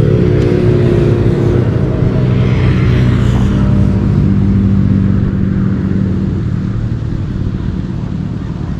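A motor vehicle's engine running close by with a steady hum, growing fainter over the last few seconds.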